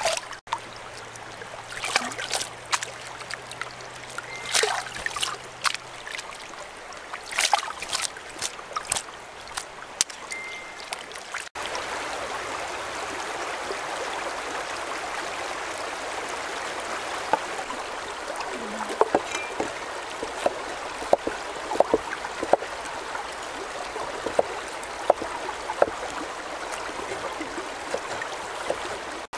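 Water splashing and pouring off a woven bamboo basket as shrimp are rinsed in a stream, in scattered splashes. Then a steady flow of running stream water with a cleaver chopping on a wooden cutting board in short, irregular knocks.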